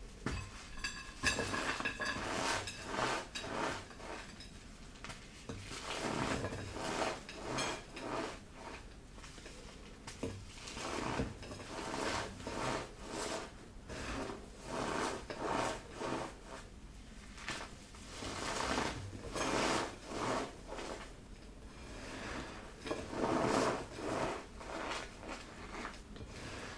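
Dried cornstarch paste with glitter being crushed and crumbled, giving a run of irregular crackling crunches, roughly one to two a second.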